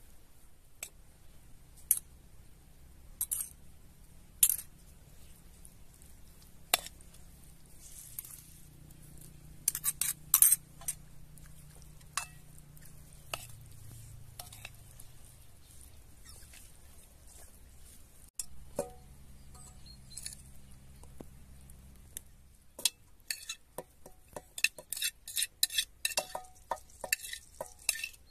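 Metal spoon clinking and scraping against a ceramic bowl as cooked rice is stirred with saffron water. The clinks are sparse at first, then come quickly, many times a second, over the last few seconds.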